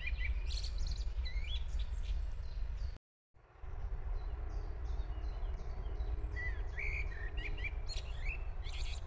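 Songbirds chirping and calling in short, rising and falling notes over a steady low rumble. The sound drops out briefly about three seconds in, then resumes.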